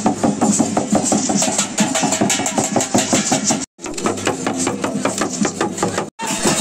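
Tamang shamans' dhyangro frame drums beaten in a fast, steady ritual rhythm, about seven beats a second, breaking off for an instant twice.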